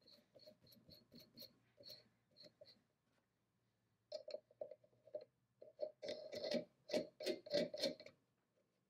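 Brass counterweight being turned by hand on a threaded steel rod, then a knurled nut threaded on above it: light metallic clicks and ticks of metal on metal. A steady run of them comes first, then a short pause, then denser, louder clusters of clicks.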